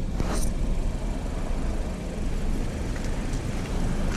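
Steady low rumble of a car, with a short hiss just after the start.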